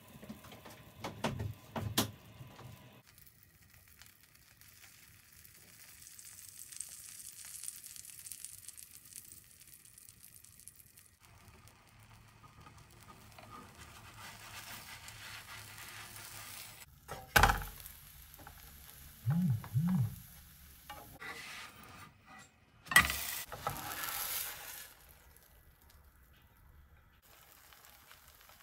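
Butter and blueberry pancake batter sizzling faintly in a nonstick frying pan, with a few sharp knocks and scrapes of a plastic spatula against the pan.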